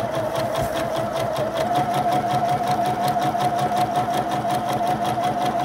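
Electric sewing machine running steadily while sewing a row of long straight gathering stitches along a fabric edge: an even motor whine with rapid, regular needle strokes.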